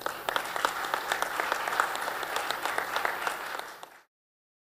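Audience applauding with a dense patter of many hands clapping, which stops abruptly about four seconds in.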